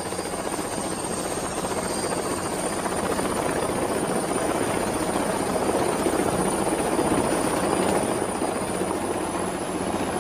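Light single-rotor helicopter running in flight, with a dense rotor and engine noise and a thin high whine that creeps slowly up in pitch. It grows a little louder toward the middle and eases slightly near the end.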